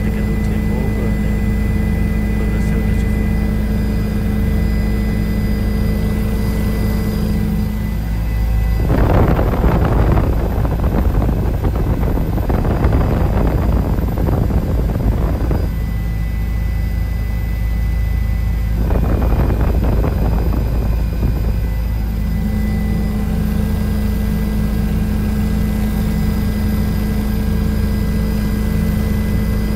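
Helicopter engine and rotor drone heard from inside the cabin, steady with a fixed hum. It is broken by two louder stretches of rough rushing noise, one from about nine to fifteen seconds in and a shorter one around nineteen to twenty-two seconds.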